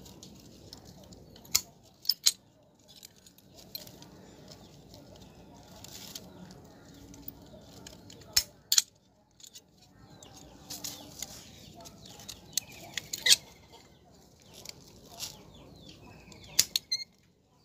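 Pruning shears snipping through the roots of a hoa mua (Melastoma) bonsai stock: sharp snips at irregular intervals, often two close together, with handling of the dry root mass between cuts.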